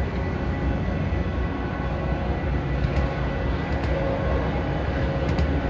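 Metra bilevel commuter coaches rolling past, a steady rumble of steel wheels on the rails with a faint high whine and a couple of light clicks.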